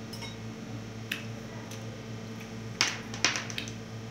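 Sharp clicks and clacks from eating at a table: one about a second in, then a quick cluster of louder ones around three seconds. A steady low hum sits under them.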